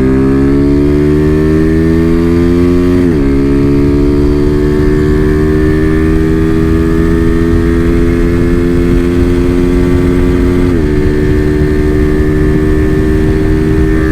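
Honda CG Fan 125 single-cylinder four-stroke engine, bored out, pulling hard under full-throttle acceleration: the engine note climbs steadily, drops sharply on an upshift about 3 seconds in, climbs more slowly through the next gear and drops again on another upshift near the end. Wind rushes over the microphone underneath.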